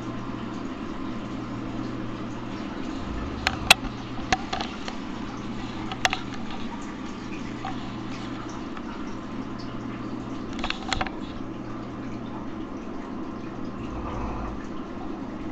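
A man snoring in his sleep, breath after breath every few seconds, with a rough, gurgling low rattle. A few sharp clicks sound over it.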